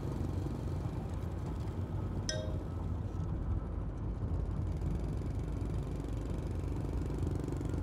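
Steady low engine and road rumble of a vehicle driving, with a brief click about two seconds in.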